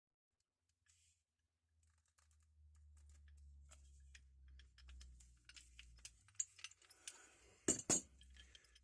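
Light metallic clicks and clinks of an old Stillson pipe wrench and its parts being handled, over a faint low hum, with two sharp clinks in quick succession near the end.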